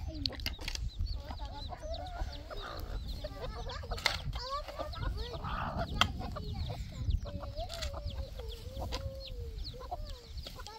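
Chickens clucking over one another, with occasional sharp scrapes and knocks of steel shovels digging into stony soil.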